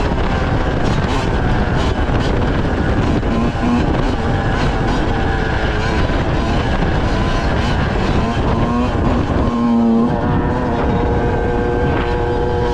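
2005 Yamaha YZ125's single-cylinder two-stroke engine running while the bike is ridden, its pitch rising and falling. Near the end the engine settles to a steady note.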